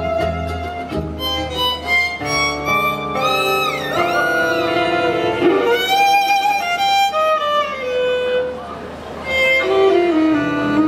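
Music: a violin playing a melody with sliding notes over an accompaniment.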